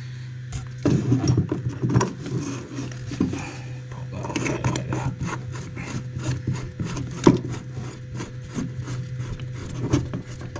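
Handling noise from a plastic magnetic system filter with brass valve fittings being offered up to copper pipework: irregular knocks, clicks and scraping of its body and fittings against the pipe and board, starting about a second in, with a sharper knock a little past halfway. A steady low hum runs underneath.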